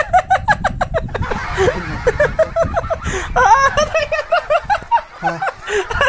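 A person laughing hard in several runs of quick, high-pitched ha-ha bursts with short breaks between them.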